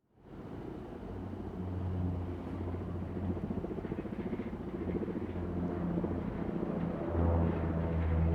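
Aircraft engines droning overhead: a steady low hum that grows louder about seven seconds in.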